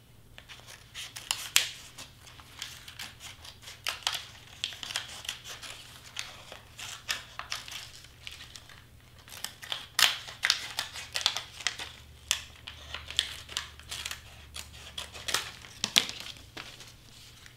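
Scissors cutting through heat transfer vinyl and cardstock: irregular snips mixed with crinkling and peeling of the vinyl sheet, with a few sharper snaps among them.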